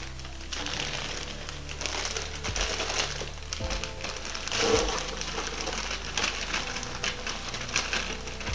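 Plastic bag of fries crinkling as it is tipped and shaken, with the fries rattling into a deep fryer's wire basket.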